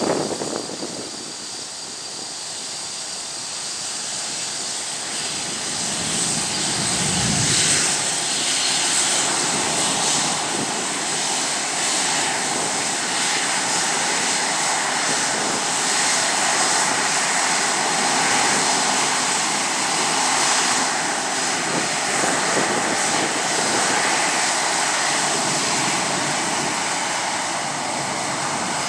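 Boeing 787's Rolls-Royce Trent 1000 turbofans running at taxi thrust: a steady high-pitched whine over a rushing hiss, growing louder over the first several seconds as the airliner rolls past, then holding steady.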